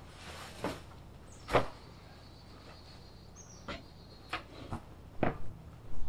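Small square hay bales being unloaded and stacked: a series of irregular thuds and knocks, the loudest about one and a half seconds in, with a quick cluster of them near the end.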